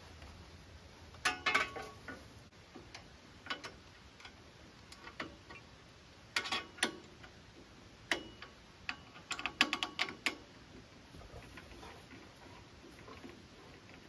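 Irregular metal clicks and short clattering runs of clicks from the hand-crank winch that raises and lowers the sawmill head being worked, with the densest clusters about a second in, past the middle, and about two-thirds of the way through.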